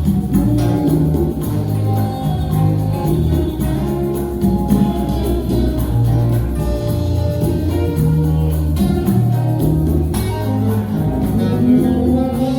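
Music with a prominent plucked bass line from an electric upright bass, its low notes changing every half second or so under other instruments.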